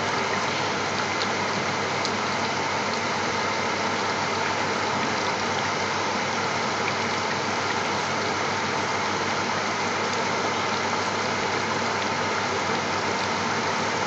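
A steady mechanical hum with an even hiss, holding level throughout, and a few faint pops from a pot of curry simmering on a gas hob.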